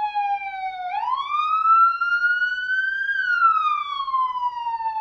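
Police siren in a slow wail: one tone that falls to its lowest pitch about a second in, rises to a peak about three seconds in, then falls slowly again.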